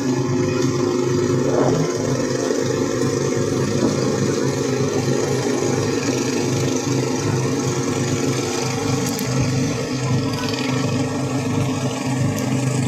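Engine of a small outrigger passenger boat running steadily under way, a constant drone.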